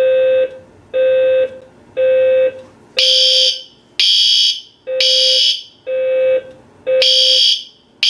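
Fire alarm notification horns of a Gamewell-FCI E3 system sounding in half-second pulses about once a second, back on because the signal silence toggle has been pressed again. A lower horn tone sounds alone at first, and about three seconds in a shriller, higher tone joins it.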